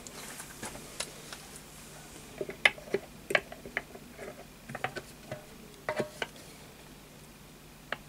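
Scattered clicks and light taps, in two clusters a few seconds in, as a tin of lighter fluid is handled and its spout is put to a model engine's fuel tank to fill it. The engine is not yet running.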